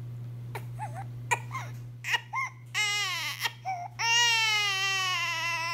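Infant fussing in short whimpers that build into crying, then breaking into one long, loud wail about four seconds in.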